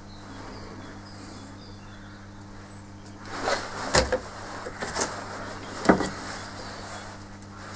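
A few short knocks and clicks of metal electrode clips and leads being handled and set down on the wooden bench, the loudest about four and six seconds in, over a steady low electrical hum.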